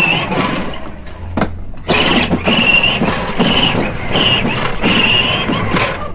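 Fisher-Price Power Wheels Corvette 12-volt ride-on toy car driving over brick pavers: hard plastic wheels rumbling and rattling, with a high, wavering whine from the electric drive that comes and goes, and a few knocks over the paver joints.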